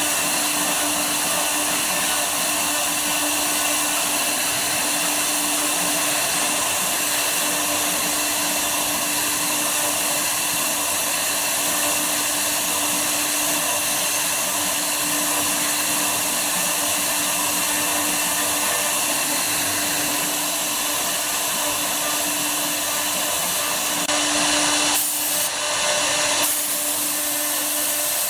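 CNC router spindle running steadily while machining wood, a constant whine over a loud hiss. About four seconds before the end it briefly gets louder and rougher, with short breaks, then settles again.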